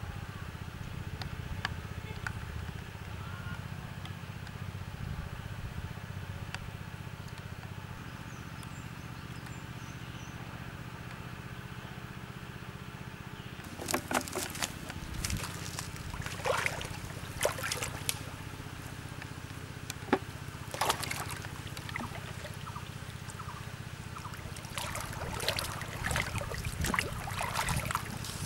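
Shallow pond water splashing and sloshing in irregular clusters from about halfway on, as a person wades in and grabs a floating plastic-bottle fish trap, under a steady low drone.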